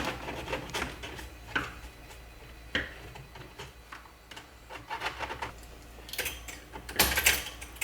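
Hard plastic pet carrier parts being handled: scattered clicks, taps and rubbing, with a louder run of clicks near the end as a clasp is fitted to hold the carrier shut.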